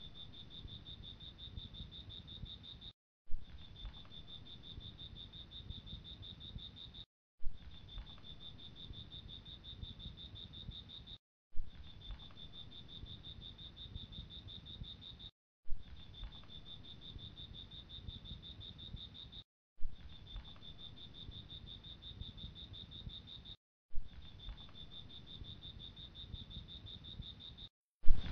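Night-time insect chorus, crickets trilling steadily on one high pitch. It breaks off into silence for a moment about every four seconds, and each stretch starts again with a sharp click, like a short recording looped.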